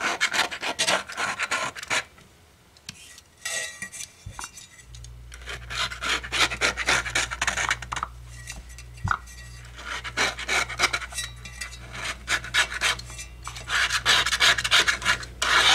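A razor knife lightly scraping old foam surround and softened glue off the edge of an EPI Model 100's 8-inch paper woofer cone, in quick repeated strokes that pause briefly about two seconds in.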